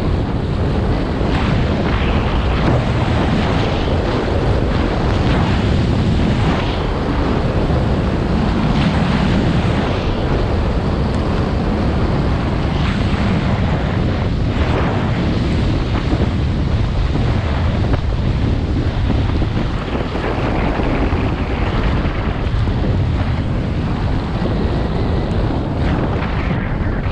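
Loud wind rushing over a body-mounted action camera's microphone while descending a ski slope at speed, mixed with the hiss of sliding over snow.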